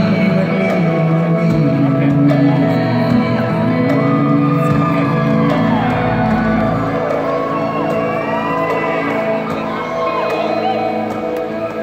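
Live concert music in an arena, heard from among the audience, with long held notes over the sound system and the crowd shouting and whooping.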